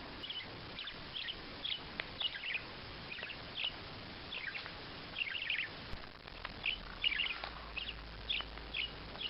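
A small bird chirping over and over: short, high chirps coming one or two a second without a break.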